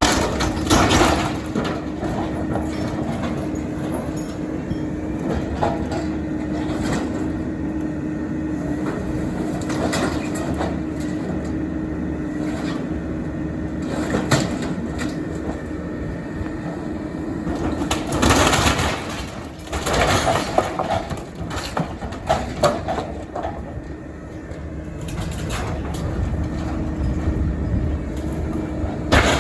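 Mini excavator's diesel engine running under load while it breaks up a wooden shed, with repeated cracking and splintering of wood and rattling of metal; the loudest crash comes about eighteen seconds in.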